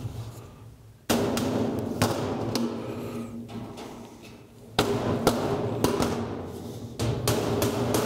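Hammer tapping a galvanized sheet-metal plenum top into place, a run of sharp metal knocks in two bursts starting about a second in and about five seconds in. The hollow sheet-metal box rings with a low, drum-like resonance after the strikes.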